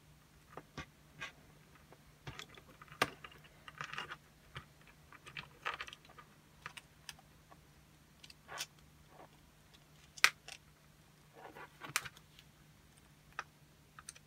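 Irregular light clicks and small taps of a model R2-D2 utility arm and its gripper being handled and fitted together on a workbench cutting mat, with a few sharper clicks about three, ten and twelve seconds in.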